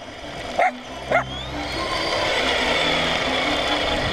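A dog barks twice, close by, in the first second or so. Then the RC truck's stock electric motor whines, rising in pitch as the truck speeds away, with steady tyre noise on the gravelly asphalt.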